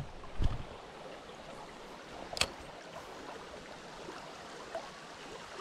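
Small trout stream running steadily, with a dull knock about half a second in and a sharp click around two and a half seconds in.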